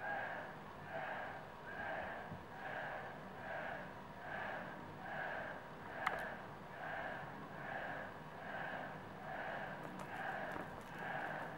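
A cat's noisy, wheezy breathing, a short breathy rasp a little more than once a second in an even rhythm. A single sharp click about halfway through.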